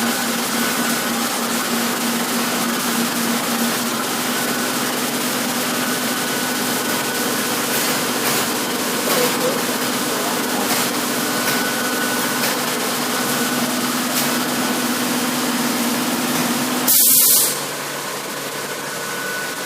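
High-frequency PVC tarpaulin welding machine running with a steady hum over workshop noise. Near the end the hum stops with a short, loud hiss.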